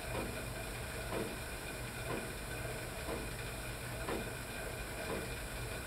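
Stationary exercise bike (cycle ergometer) running steadily as it is pedalled: a continuous hissing whir from the flywheel with faint swishes repeating roughly every half second to second.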